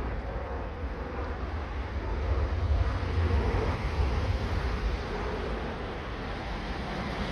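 Low, steady rumble of wind on the microphone mixed with distant jet aircraft noise, swelling for a couple of seconds in the middle.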